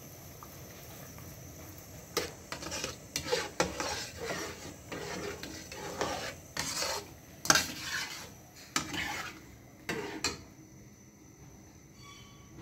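Metal spoon stirring thick rice-and-milk kheer in a black kadai, with irregular clinks and scrapes against the pan from about two seconds in until near the end.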